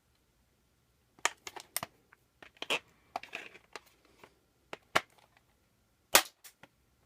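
Plastic clicks and snaps from a VHS cassette's shell and small internal parts being handled and pried apart. Scattered sharp clicks start about a second in, with the loudest snap near the end.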